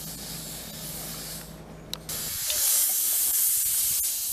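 Small narrow-gauge steam locomotive hissing steam from its open cylinder drain cocks as it approaches, the hiss getting much louder a little past halfway, with a single sharp click just before.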